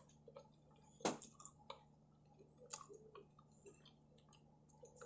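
Faint chewing of pizza, with scattered soft mouth clicks and one sharper click about a second in.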